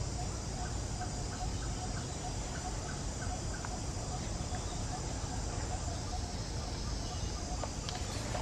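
Outdoor ambience with a steady low rumble, over which a bird calls in a run of short, evenly repeated notes, a few a second.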